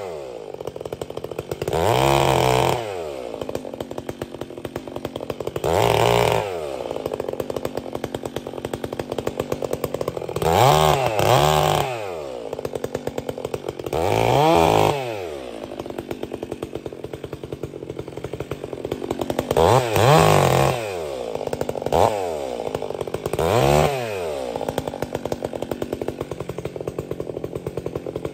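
Stihl 362 C-M two-stroke chainsaw, fitted with a free-flowing Bark Box muffler, idling with a fast, even pulse. It is revved in short bursts of about a second, several times, each time rising in pitch and dropping back to idle.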